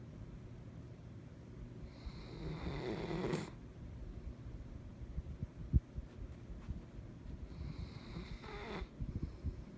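German shepherd snoring in its sleep: two long snores about five seconds apart, each swelling and then cutting off sharply, with a low rattle between them. A single sharp click comes a little past the middle.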